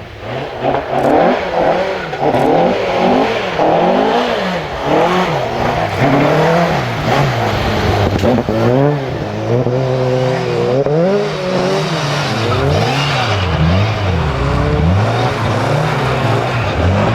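Rally car engine revving hard through its gears, the pitch climbing and dropping over and over as it accelerates, lifts and shifts along a stage.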